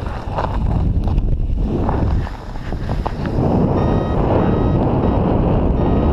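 Wind rushing over the microphone of a paraglider in flight. In the second half a few short, evenly spaced electronic beeps come from the pilot's variometer.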